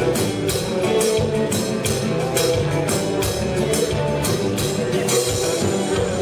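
Live band playing a kompa song: bass guitar, keyboards and drum kit, with a quick, even cymbal beat of about five strokes a second over a steady bass line.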